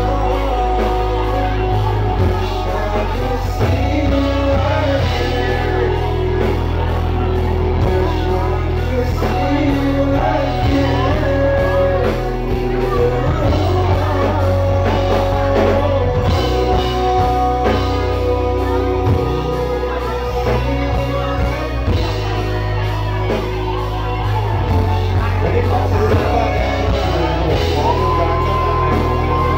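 Live band music with a singer over strong, steady bass, recorded from the audience, with some shouting.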